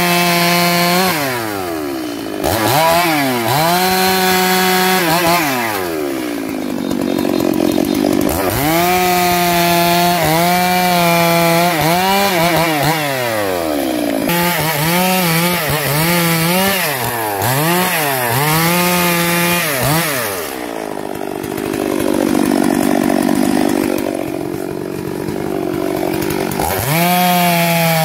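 STIHL MS 382 two-stroke chainsaw cutting through logs, its engine running at full throttle with the pitch dipping and recovering again and again as the chain loads in the wood. Twice it drops back to lower revs for a few seconds, the longer spell about two-thirds of the way in, before revving up again.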